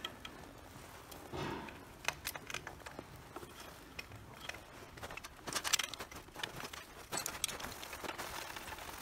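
Light clicks, taps and scrapes of a metal front sprocket cover being handled and fitted against a motorcycle's engine casing, with a busier cluster of clicks in the middle of the stretch.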